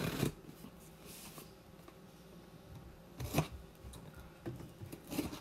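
Scissors slicing through packing tape on a cardboard shipping box while the box is handled: short scraping, rustling cuts at the start and again about three and five seconds in, quiet in between.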